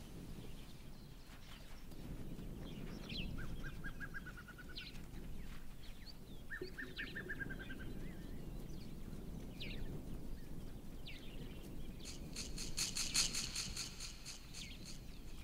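Wild birds calling over low outdoor ambience: scattered short high chirps and two brief trills, then a fast rattling run of high clicks for about two seconds near the end.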